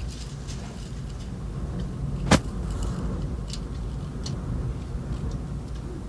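Handling noise from a handheld camera: scattered light clicks and one sharp click a little over two seconds in, over a steady low rumble.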